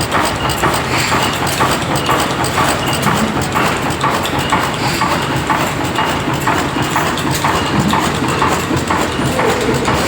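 1910 MAN air-blast diesel engine running steadily, with an even rhythmic knock about twice a second over a continuous mechanical clatter.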